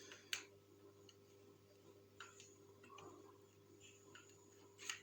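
Near silence with a few faint clicks of plastic aquarium-filter parts being handled and fitted together, a sharper click about a third of a second in and another near the end, over a low steady hum.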